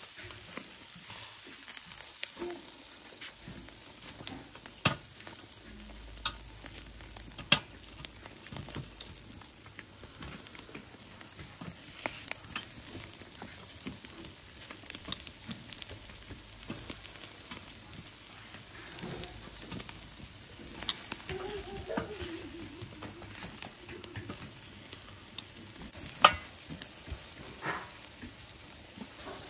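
Chicken and sausages sizzling and crackling over hot charcoal on a kettle barbecue grill, with several sharp clicks of metal tongs on the grate as the pieces are turned.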